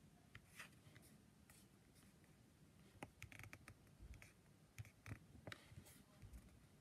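Near silence, broken by a few faint, scattered clicks of a laptop touchpad.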